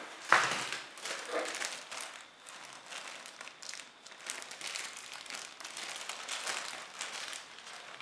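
Clear plastic zip bag holding a coiled fiber optic patch cord crinkling in irregular rustles as it is picked up and handled, with one sharp knock about a third of a second in.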